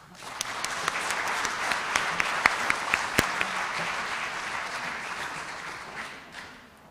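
Audience applauding, starting at once, holding steady, then dying away near the end.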